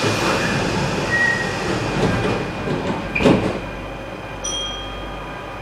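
Steady rumbling noise with a short, louder squeal that rises and falls about three seconds in, and faint high steady tones near the end.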